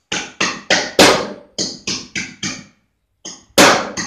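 Background music: a rhythmic run of sharply struck or plucked notes, about three a second, in groups of four with short pauses between them.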